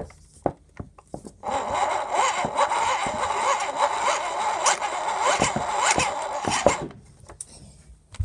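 Small hand-cranked generator whirring for about five seconds, starting over a second in, its whine wavering up and down with the cranking speed as it powers a model streetlight.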